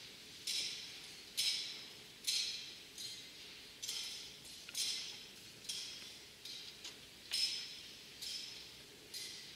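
Small metal bells chinking in a steady series of short, ringing strikes, about one a second, each fading quickly.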